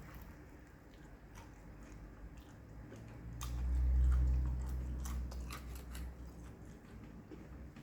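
A person chewing food close to the microphone, with scattered short crunches and mouth clicks. A low rumble swells briefly around the middle and is the loudest part.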